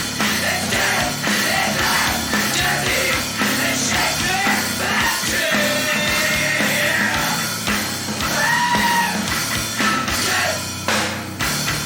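Loud heavy rock music with distorted instruments, drums and shouted or sung vocals.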